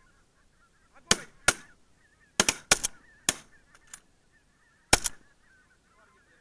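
A rapid volley of shotgun shots at a passing flock of geese, about nine sharp reports in four seconds, some almost on top of one another. Faint honking of the goose flock runs underneath.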